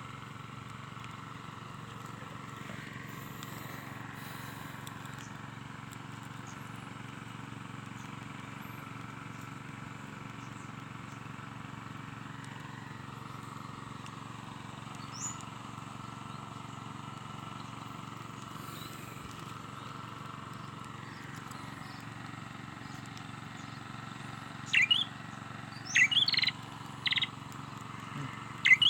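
Bird chirping: a quick run of short, sharp, high calls near the end, over a steady outdoor background.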